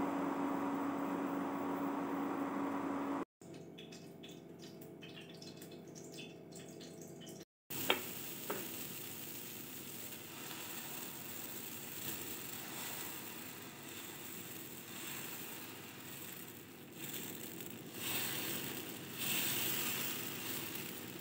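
Dosa batter sizzling with a high hiss on a hot non-stick tawa as it is poured and spread, growing louder near the end. Before that, potatoes with onions frying in a steel pan over a steady hum, and a sharp click about eight seconds in.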